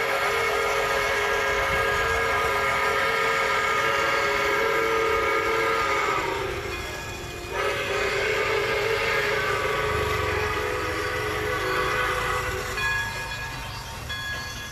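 Recorded train horn sound effect: two long steady horn blasts, the first lasting about six seconds, the second starting after a short break about seven and a half seconds in and fading out near the end.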